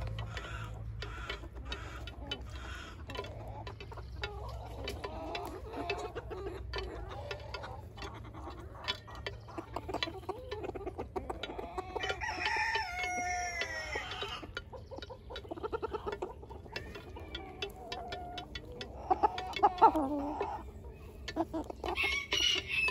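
Backyard chickens clucking and calling, with a rooster crowing once for about two seconds, roughly twelve seconds in. The loudest calls come about twenty seconds in.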